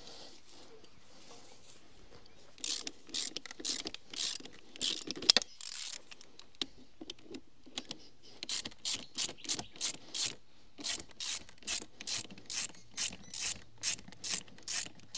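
Ratchet wrench clicking as it is swung to and fro, undoing the tappet-cover bolts on a diesel engine. A few uneven strokes come first with one sharp click, then after a short pause a steady run of about three clicks a second.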